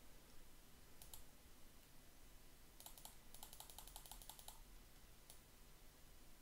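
Faint computer keyboard typing. There is a single click about a second in, then a quick run of keystrokes from about three to four and a half seconds in, and one more click a little after five seconds.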